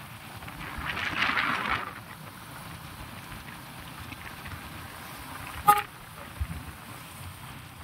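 Road traffic noise, louder for about a second near the start, with one short vehicle horn toot a little past halfway.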